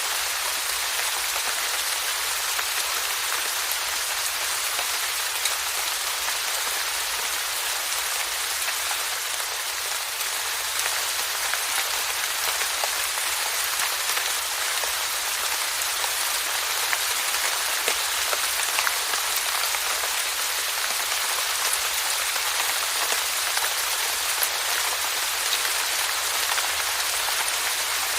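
Steady rainfall: an even hiss of rain with scattered individual drops ticking on a surface.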